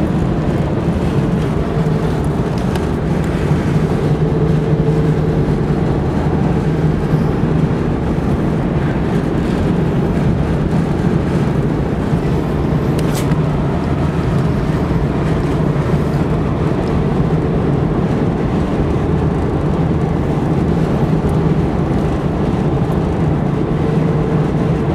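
Steady engine drone and tyre road noise inside a moving car's cabin, a low hum that holds even throughout.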